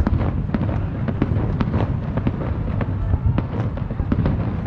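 A fireworks display going off: a rapid run of sharp bangs and crackles, several a second, over a continuous low rumble.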